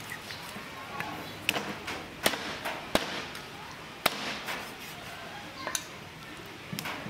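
Steel meat cleaver chopping raw duck pieces on a round wooden chopping block: about six sharp chops at an irregular pace.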